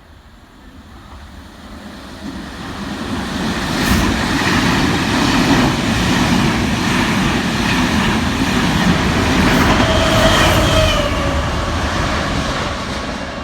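A train passing close by: it builds up over the first few seconds, stays loud for several seconds with rail noise, then begins to fade. A short whine sounds about ten seconds in.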